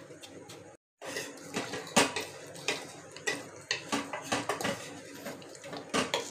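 Metal spoon clinking and scraping against a dish as spice masala is spooned out: a run of sharp, uneven knocks. The audio drops out completely for a moment just before a second in.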